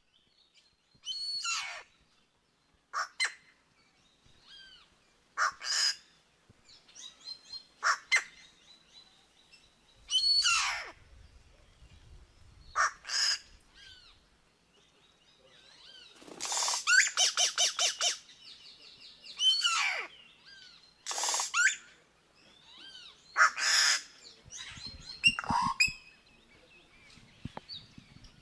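Yellow-rumped cacique singing: a string of separate loud, varied calls with short pauses between them, many of them sharp notes falling in pitch, and a fast rattle about halfway through.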